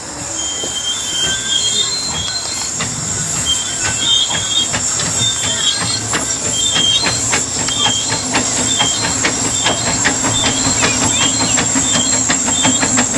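Andrew Barclay narrow-gauge steam locomotive running light over pointwork, with a rhythmic beat that quickens and repeated high metallic squeals from wheels and motion, over a steady high hiss.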